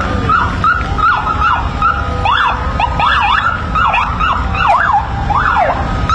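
Sirens on a column of police motorcycles, several going at once, in quick rising-and-falling yelps of about two sweeps a second, over a steady low rumble.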